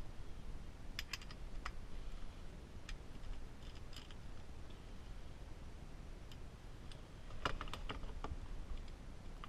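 Scattered light clicks and taps from a socket and ratchet being handled and fitted onto the steering-wheel nut, with a quick run of several clicks about three quarters of the way through.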